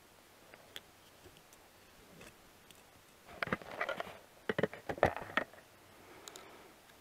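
Handling noise: a quick run of sharp clicks and rattles a little past the middle, from hands fiddling with small objects close to the microphone, with a few faint ticks before it.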